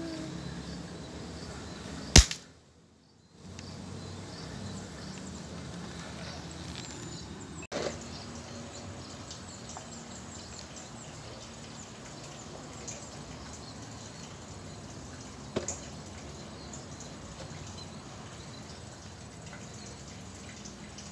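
An air rifle firing once: a single sharp crack about two seconds in, after which the sound drops out for about a second. Steady outdoor background hiss follows, with two fainter clicks later on.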